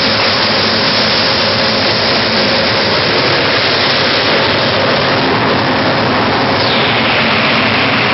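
Large industrial centrifugal fan for an agricultural dryer running at speed: a loud, steady rush of air with a faint steady tone underneath.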